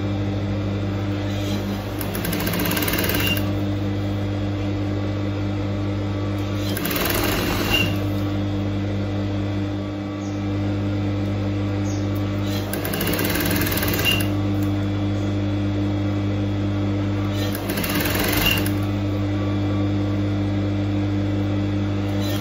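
Electric sewing machine running steadily, stitching a double-folded hem around the edge of a thick cloth doormat base. A brief swell of higher hiss comes about every five seconds.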